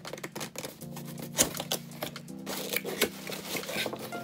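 Small cardboard box being torn open by hand: irregular tearing and crackling of cardboard, loudest about a second and a half in, over steady background music.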